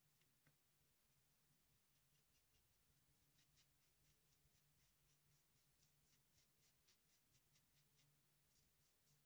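Faint rapid scraping of a Rockwell 6C safety razor's blade cutting through about a week's stubble on the chin, in short strokes about four a second.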